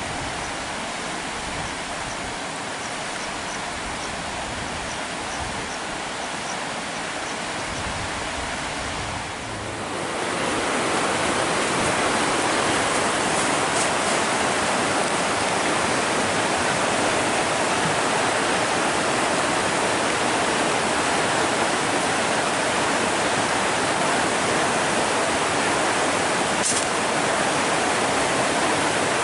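Steady rush of a swollen, fast-flowing river in flood, growing louder about ten seconds in and then holding steady.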